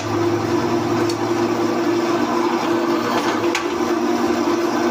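Drill press running while drilling holes in a steel plate: a steady machine hum, with a few small sharp metallic clicks.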